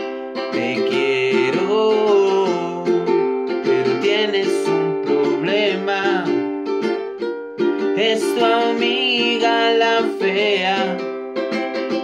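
Ukulele strummed in a steady rhythm, with a man singing over it.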